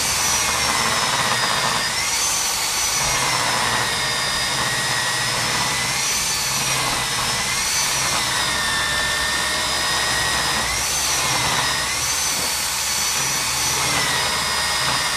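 Electric wet core drill running as its bit cuts through rebar-reinforced concrete, water cooling the cut. The motor's whine sags under load and then jumps back up about every four seconds.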